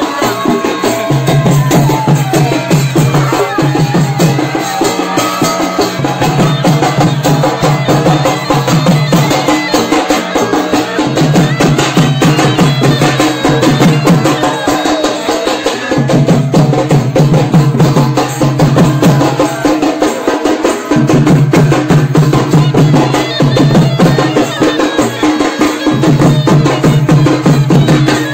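Village drum band of double-headed barrel drums (dhol), beaten with a stick on one head and the hand on the other. They play a fast, continuous folk rhythm, loud, with a deep pulsing drum beat that drops out briefly every few seconds.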